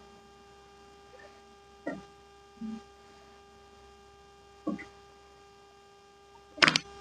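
Steady electrical mains hum, with a few brief faint low sounds and a loud sharp click about six and a half seconds in.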